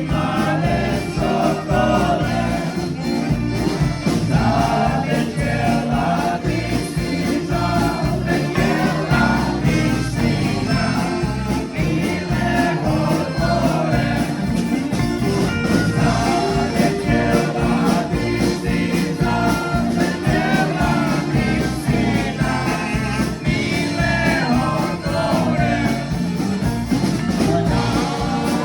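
Music with singing: several voices sing a melody over a steady instrumental accompaniment.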